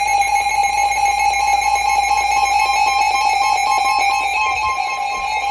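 Emergency alert attention tone from a weather radio broadcast: a loud, steady two-pitch alarm tone held without a break, marking the start of a severe thunderstorm warning.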